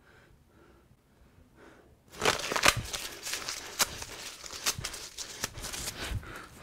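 Paper being handled, rustled and crumpled. It starts about two seconds in as a dense, irregular rustle with many sharp crackles.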